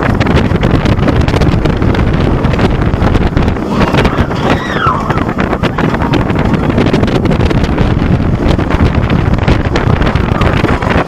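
Wind rushing over the microphone and the rumble of a Bolliger & Mabillard wing coaster train running through its course, loud and continuous, with a brief rising-and-falling rider's cry about four seconds in.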